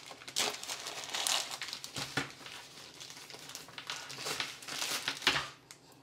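Packaging crinkling and rustling as it is handled, in a run of irregular bursts with the sharpest one a little after five seconds in.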